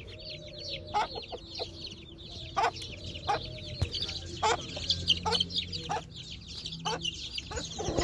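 A brood of Aseel chicks peeping constantly in quick, high, falling chirps. Their mother hen clucks now and then among them.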